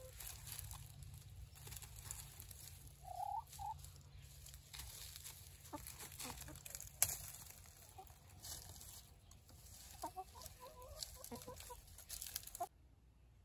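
Chickens clucking softly as they forage, with short clucks about three seconds in and a run of them around ten seconds, over faint scattered rustling in dry leaves.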